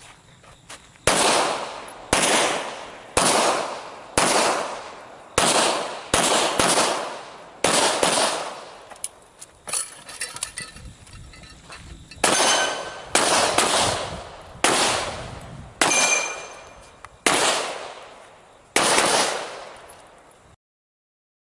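Handgun shots fired singly at a quick, uneven pace, more than a dozen in all, each ringing out and fading. They come about one a second, with a two-second lull past the middle. The sound cuts off abruptly near the end.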